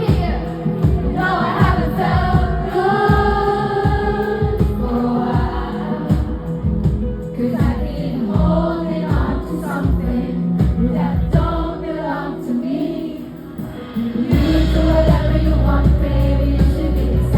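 Live pop band playing with sung vocals over drum hits, recorded at a concert. About fourteen seconds in the full band comes in with a much heavier bass.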